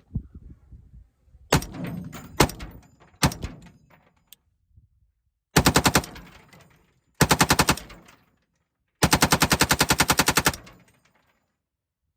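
Lima6 belt-fed AR-15 upper firing 55-grain 5.56 rounds in three full-auto bursts, the last about twice as long as the first two. It is preceded by a few loud metallic clacks.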